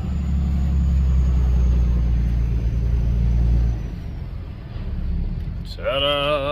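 Log truck's engine running with a steady low rumble that drops away about four seconds in. Near the end a voice with wavering pitch comes in, singing or chanting.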